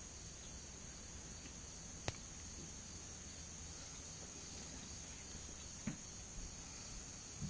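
Steady high-pitched trilling of insects in the background, with a single sharp click about two seconds in and a softer knock or two later.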